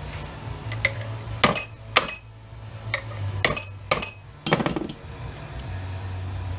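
Small metal parts and hand tools clinking against metal: about seven sharp clinks with a brief ringing over the first five seconds, above a steady low hum.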